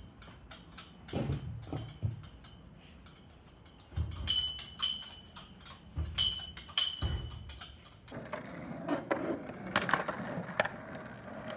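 Children on a metal-pipe climbing frame: scattered thumps and clanks as they swing and land, some leaving a short metallic ring. About eight seconds in this gives way to skateboard wheels rolling over a concrete driveway.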